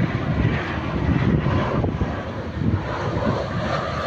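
Twin jet engines of an Airbus A320-family airliner on final approach with landing gear down, a steady rushing rumble of engine and airframe noise.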